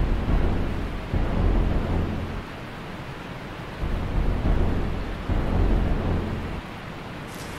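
Deep rumbling sound effect that swells and fades in about four surges, at the start, about a second in, around four seconds and just after five seconds, over a steady rushing noise.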